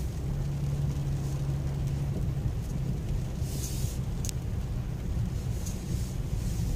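BMW X6 rolling slowly over a gravel off-road track, heard from inside the cabin: a steady low engine and tyre rumble, with an engine hum held for the first couple of seconds. Two short high ticks come about halfway through.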